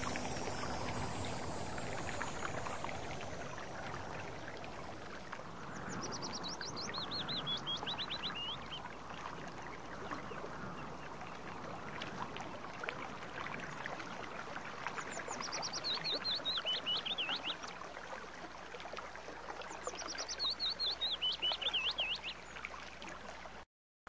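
Mountain stream water rushing steadily over rocks, with a songbird singing a quick run of notes falling in pitch three times. The sound cuts out abruptly just before the end.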